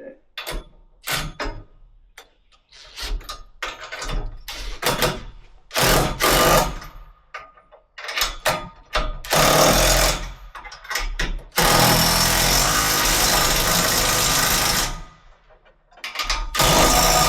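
Power impact wrench tightening nuts on U-bolts, run in a string of short bursts, then in one steady run of about three seconds, and in a final burst near the end.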